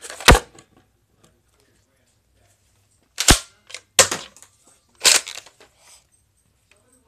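Plastic Nerf dart blaster being worked to clear a jam: a sharp clack about a quarter second in, then a few more sharp clacks with short rattles between about three and five seconds in.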